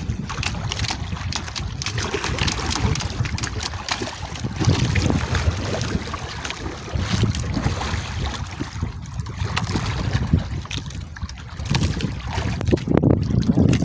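Wind buffeting the microphone on a small outrigger boat at sea, an uneven low rumble under a hiss of wind and water, with scattered clicks and knocks from handling and the boat.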